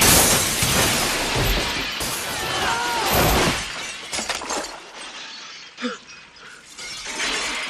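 A large glass window shattering as bodies crash through it, with shards crashing down for about three and a half seconds, then dying away into scattered smaller clinks and knocks.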